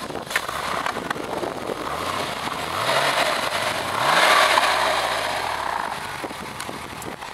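A car accelerating past, its engine pitch rising twice as it pulls through the gears. It is loudest about four seconds in and then fades away.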